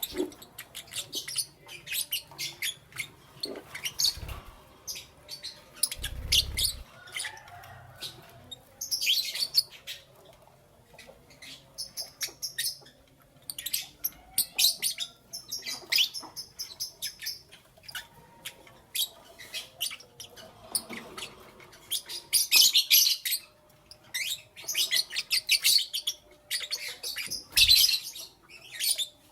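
Lovebirds chirping in rapid clusters of sharp, high-pitched chirps broken by short pauses, with a few soft low thumps, one about six seconds in.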